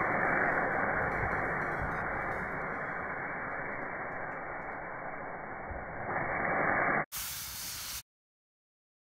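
Coconut milk with fish and vegetables bubbling and sizzling in a cast-iron pot over a wood fire: a steady hiss. It cuts off about seven seconds in, a second of brighter hiss follows, then complete silence.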